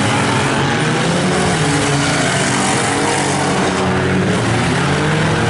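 Several compact derby cars' engines running and revving at once, their pitches rising and falling as they race around the track.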